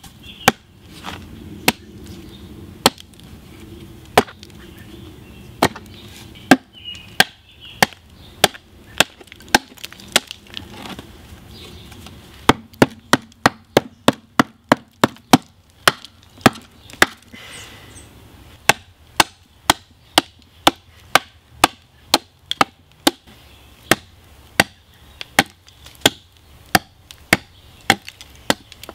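Hatchet chopping into a birch log set on a wooden chopping block: a long series of sharp chops, spaced out at first, then coming in quick runs of about three a second.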